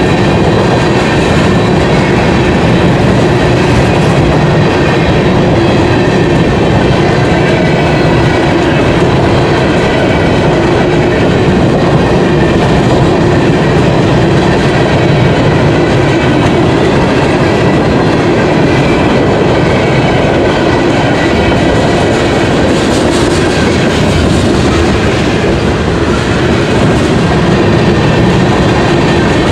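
CN manifest freight train's cars rolling past close by: a steady loud rumble of steel wheels on rail with clickety-clack, and a faint high steady squeal from the wheels.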